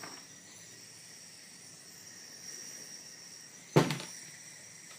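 MAP gas torch burning with a faint steady hiss while it heats a bullet connector to melt solder. A single sharp click or knock about four seconds in.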